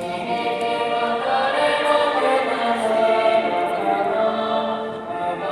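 A choir of young voices singing a slow song in long held notes that move from chord to chord.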